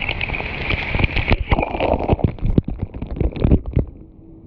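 A tipping bucket's load of water crashing down directly onto the camera, with heavy splashing and many sharp hits of water on the housing and microphone. It dies away about four seconds in to a faint, muffled trickle.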